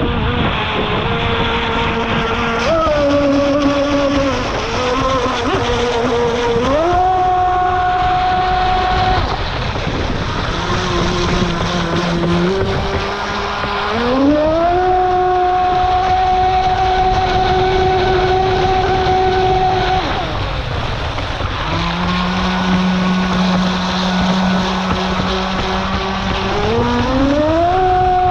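Radio-controlled model boat's scale V8 outboard motor running at speed, its whine climbing in pitch three times as the throttle opens and dropping back in between, with water rushing and splashing against the hull.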